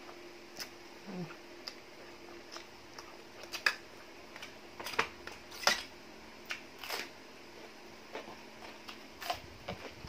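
Crisp fresh lettuce and raw vegetables being chewed and handled while eating a glass-noodle seafood salad: about ten irregular sharp crunches and snaps, the loudest near the middle.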